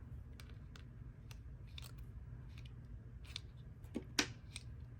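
Faint metallic clicks from a small stainless-steel multitool's folding pliers being opened and worked by hand, with two sharper clicks about four seconds in.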